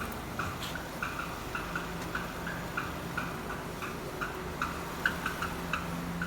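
Renault Duster's 2.0 F4R engine idling with its DP8 automatic gearbox, under it a light, uneven clicking or tapping from around the gearbox, about four clicks a second. The noise comes on only once the engine is warm and is heard mainly at idle; the owner, going by forums, suspects the flywheel (flex plate).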